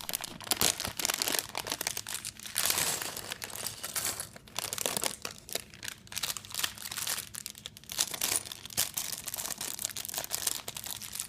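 Plastic LEGO parts bags crinkling and rustling as they are handled and torn open, in irregular bursts with small clicks.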